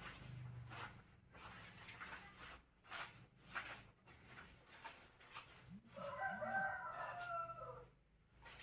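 A rooster crowing once in the background, a drawn-out call of about two seconds near the end that falls in pitch as it finishes, over scattered light clicks and knocks.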